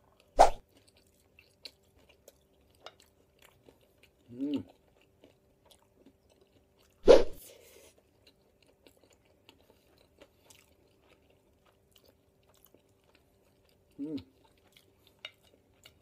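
A person eating crisp fried chicken (karaage): two sharp, loud crunches, one right at the start and one about seven seconds in, with soft chewing clicks between. Two short hummed "mm" sounds come about four seconds in and near the end.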